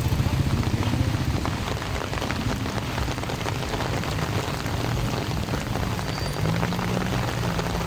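Heavy rain falling, a dense crackle of drops striking surfaces, over a low steady hum.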